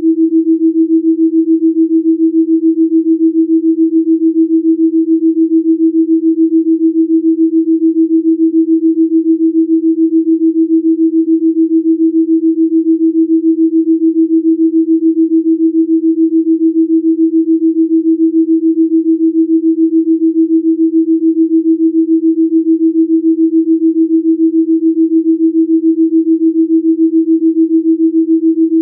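Delta binaural-beat pure tone: a single sine tone held at one steady pitch, pulsing evenly and quickly in loudness.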